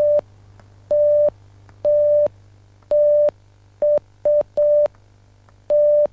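Morse code SOS sent as a steady beeping tone from a small improvised transmitter circuit: three long beeps, then three short ones, then another long one near the end.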